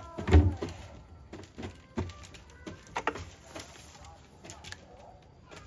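Ostriches pecking and knocking at their feed: one loud low thump about a third of a second in, then scattered knocks and clicks.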